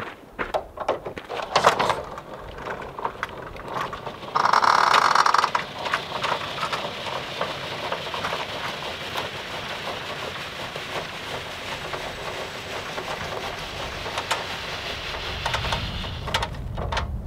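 Van's manual roll-out awning being wound open with a crank rod: a few clicks as the rod is engaged, a loud buzzing rattle about four seconds in, then a steady mechanical whirring with small ticks as the crank turns the awning's gear and the fabric unrolls.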